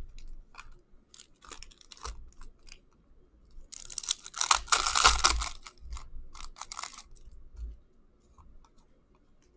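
Foil wrapper of an Upper Deck Series 1 hockey card pack crinkling and tearing open in the hands: scattered rustles and clicks, a dense burst of crackling about four seconds in, then lighter clicks of the cards being slid out and handled.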